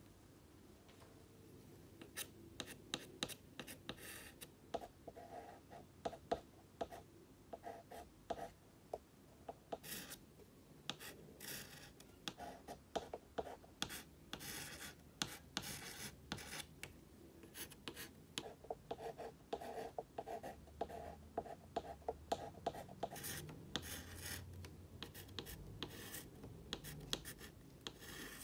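Chalk writing on a blackboard: quick taps and scratchy strokes of the chalk, coming in irregular runs with short pauses between letters.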